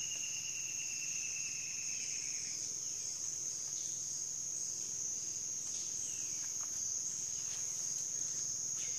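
Rainforest insects in a steady high-pitched chorus, joined early on by a second, lower insect tone that drifts slightly down and fades out about two and a half seconds in. A few faint, short chirps come through later.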